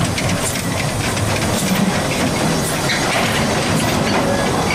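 Narrow-gauge freight train of wooden wagons rolling past, with a steady rumble and scattered sharp clicks of the wheels over the rail joints.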